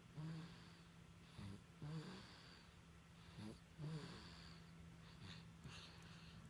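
Baby snoring softly, with short snorty breath sounds in pairs roughly every two seconds; they die away about four seconds in.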